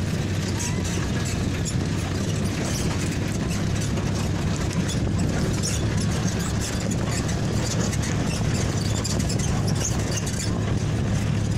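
Vehicle engine running steadily under a low drone as it drives along a gravel dirt road, with road and wind noise over it.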